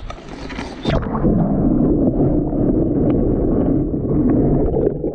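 Water splashing, then, from about a second in, a loud muffled churning as the microphone goes under the lake water while a caught pike is released.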